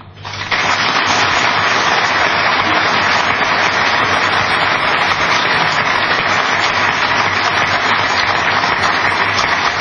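Large audience applauding, the clapping swelling up within the first half second and then holding steady.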